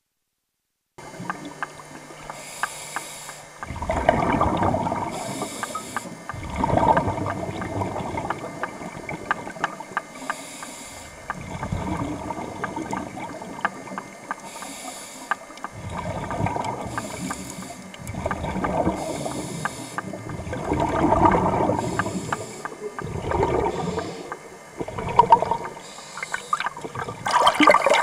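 Scuba diver breathing underwater through a regulator: a hiss on each inhale, then a burst of bubbling exhaust on each exhale, repeating every two to three seconds.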